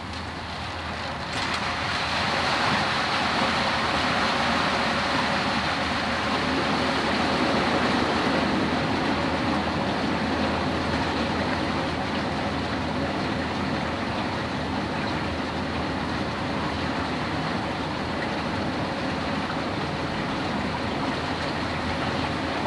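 Flash flood bore arriving in a dry sandy channel: muddy floodwater rushing in. The steady rushing noise rises suddenly about a second in and then holds.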